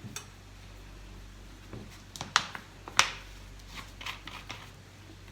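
Light clicks and knocks of a small jar and container being handled while thinner is set out, with two sharper knocks a little past the middle.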